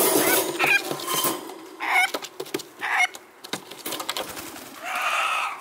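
Bantam hens calling: short clucking calls about a second apart, then a longer call near the end, mixed with sharp clicks and rattles.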